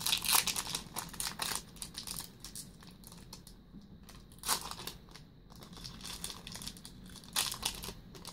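Foil trading-card booster pack wrappers crinkling and tearing as packs are handled and opened by hand, in short crackly spells, loudest at the start, about four and a half seconds in, and near the end.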